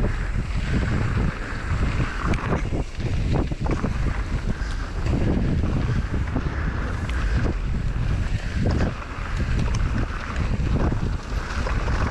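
Wind buffeting a GoPro action camera's microphone as a mountain bike rides down a dirt jump line. The bike's tyre rumble runs underneath, and scattered knocks and rattles come from the bike.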